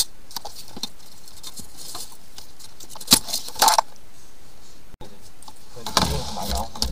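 Plastic handling noises: a few short clicks and rattles, then, about six seconds in, rustling and knocking as a black corrugated hose with a white PVC elbow fitting is handled and fitted to the drain pipe.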